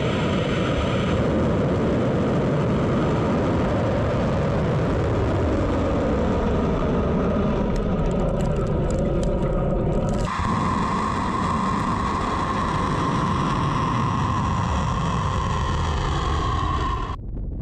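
Ballistic missile's rocket motor at lift-off: a loud, continuous rumble. It breaks off abruptly about ten seconds in and resumes with a steadier hiss-like edge, then drops away near the end.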